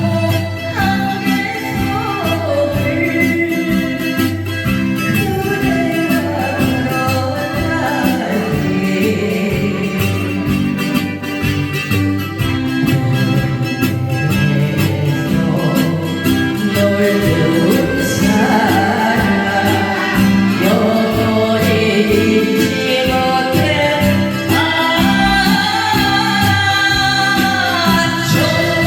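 A woman singing a Korean trot song in a clear voice over a band accompaniment.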